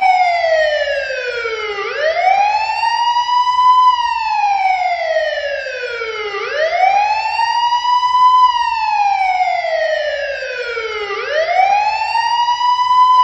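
Emergency vehicle siren wailing. Its pitch rises quickly and falls slowly, in a repeating cycle of about four and a half seconds, heard over two and a half cycles.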